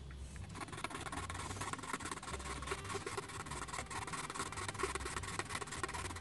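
Abrasive working of the metal base of a 1:64 die-cast model car to prepare its surface: a steady scratchy rubbing with a faint steady whine, starting about half a second in.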